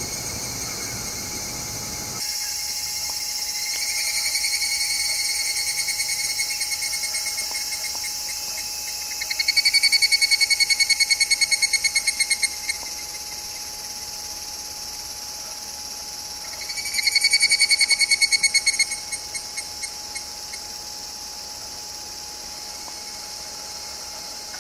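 Evening cicadas (higurashi) calling: trilled kana-kana phrases of rapid pulses that swell up and then trail off into slower, spaced clicks. There are three calls: a quieter one a few seconds in, and two loud ones, about ten seconds in and about seventeen seconds in. A faint steady tone runs underneath.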